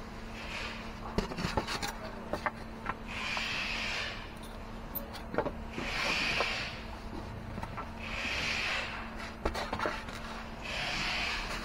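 Foam packing blocks and a plastic bag handled while an appliance is packed: rubbing, rustling and light knocks and clicks. A soft hiss comes back about every two and a half seconds over a faint steady hum.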